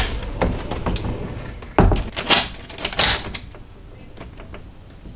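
Wooden pocket door sliding shut on its track and thudding against the jamb about two seconds in, then two sharper knocks as the newly fitted round privacy latch is tried.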